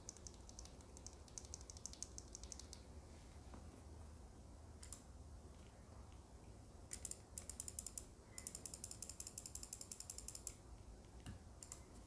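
Computer mouse scroll wheel being spun, giving rapid runs of small, even ratchet ticks: one at the start, a short one about seven seconds in, and a longer, faster one near the end.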